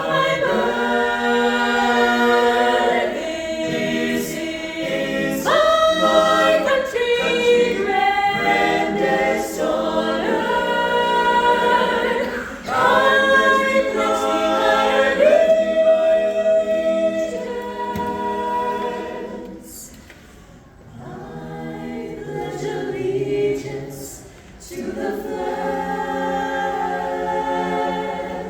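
A cappella vocal ensemble singing in close harmony, with held chords and no instruments; the singing dips quieter for a couple of seconds about two-thirds of the way through.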